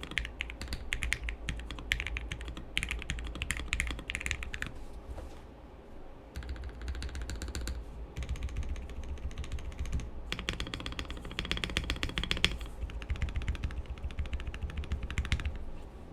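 Fast typing on an MW65 mechanical keyboard, an acrylic-stack, gasket-mounted board with a polycarbonate plate and lubed Gateron Yellow linear switches under dye-sub keycaps. The keystrokes come in rapid bursts with pauses of a second or two between them.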